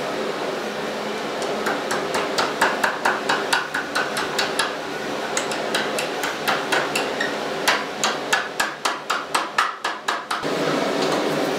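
Blacksmith's hammer striking hot steel on an anvil in quick, ringing blows, about three a second, with a short pause midway, while forging a small fork-shaped fire steel. A steady background hum runs underneath and is left alone when the hammering stops near the end.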